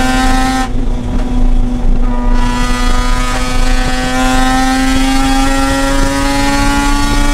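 Mazda RX-8's Renesis rotary engine pulling hard on track, its note rising slowly and steadily as revs build in one gear, with a brief change in the sound about a second in.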